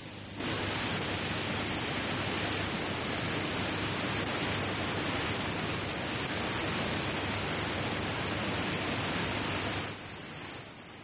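Steady, even hiss of recording noise from camcorder footage, over a faint low hum. It switches on abruptly about half a second in and drops away abruptly near ten seconds in.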